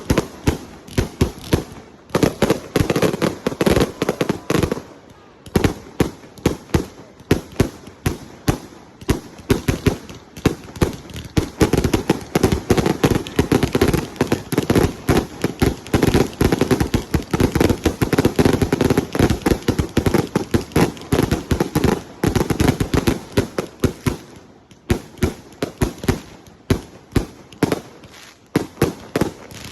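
Fireworks going off in a dense, rapid string of sharp bangs and crackling, easing briefly about five seconds in and again a few seconds before the end.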